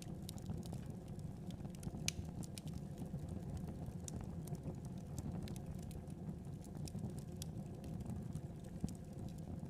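Food cooking on a stovetop: a steady low rumble with many small scattered pops and crackles.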